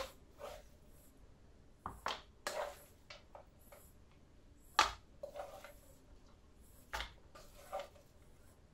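A spoon scooping soft cooked dog food out of a metal pot into plastic dog bowls: soft scraping, with sharp knocks of the spoon against the pot or bowl every two seconds or so.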